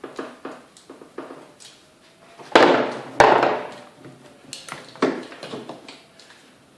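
Tools and metal engine parts knocking and clanking as a carburetor is worked loose. There are a few light clicks, then two loud knocks about half a second apart near the middle, then a few lighter clacks.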